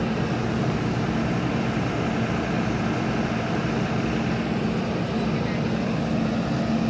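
Steady mechanical hum: a constant low drone under an even rushing noise, unchanged throughout.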